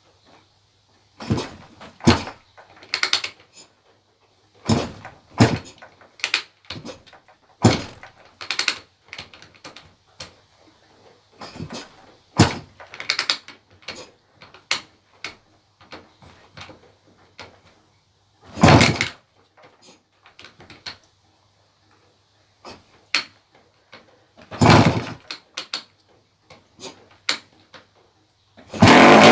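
A freshly rebuilt 1986 KTM 250 MX two-stroke engine being kick-started: about twenty kickstarter strokes come at uneven intervals with pauses between them, each a short mechanical clunk as the engine turns over without catching. Right at the very end the engine fires and keeps running.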